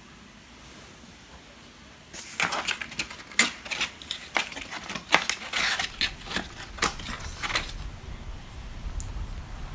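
Quiet room tone, then about two seconds in a quick, irregular run of sharp clicks, knocks and rustles from objects being handled, lasting about five seconds before it fades.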